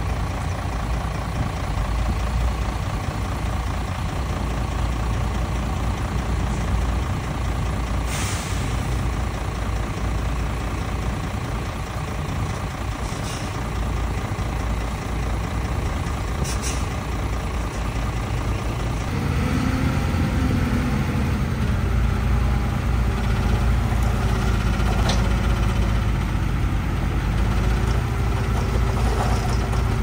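Diesel dump truck engines running steadily, with a few short air-brake hisses. About two-thirds of the way through, a nearer engine grows louder.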